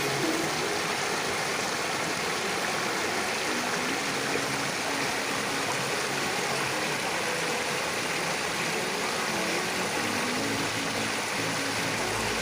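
Waterfall's falling water rushing, a steady, even roar of water.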